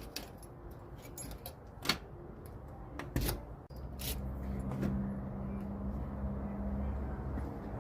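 Aluminium sliding door being slid shut and its lock worked: a series of sharp clicks and knocks, the loudest about two and three seconds in. From about four seconds in a steady low hum runs beneath.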